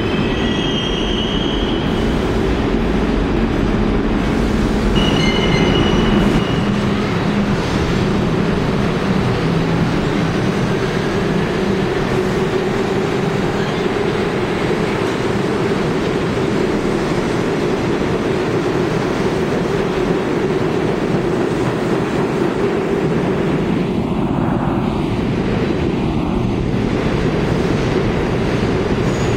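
New York City subway trains running through the station: a steady heavy rumble of wheels on rail, with brief high wheel squeals near the start and about five seconds in.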